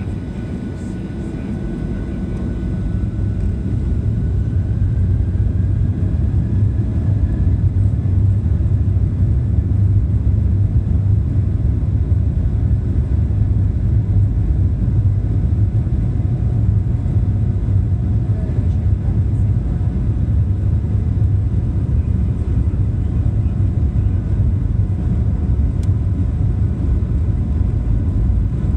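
Boeing 737-700's CFM56-7B turbofan engines spooling up to takeoff thrust, heard inside the cabin. A faint rising whine and a deep rumble grow over the first few seconds, then the rumble holds loud and steady through the takeoff roll.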